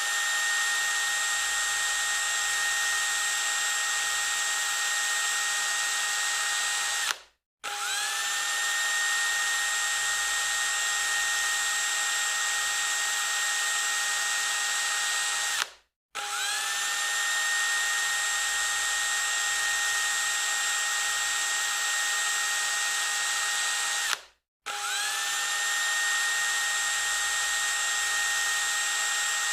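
Power drill running at a fast, steady whine, stopping three times and starting up again each time with a quick rise in pitch as the motor spins up.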